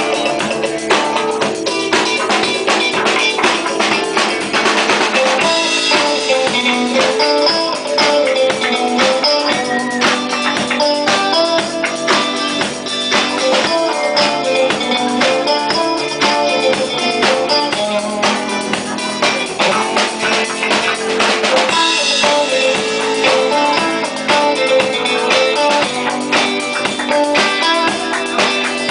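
Live rock band playing an instrumental passage: a drum kit keeps a steady beat under guitars, with a melody line of changing notes over held chords.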